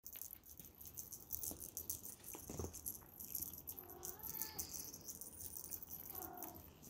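Maine Coon cat meowing twice, once about four seconds in and again near the end, over a continuous high-pitched clicking and rattling.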